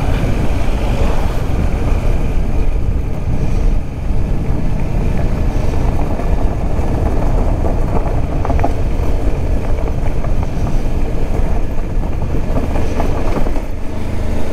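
Motorcycle riding along at steady speed: a continuous rush of engine and wind noise with no marked change.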